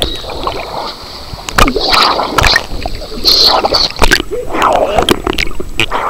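Churning rapids water splashing and sloshing over a waterproof camera held at the surface, with many sharp splashes as the microphone dips in and out of the water. A steady high whine runs through the first half.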